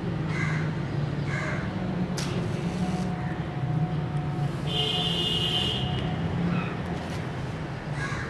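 Crow cawing a few times in short calls over a steady low hum of street traffic, with one longer, steady high-pitched call about five seconds in.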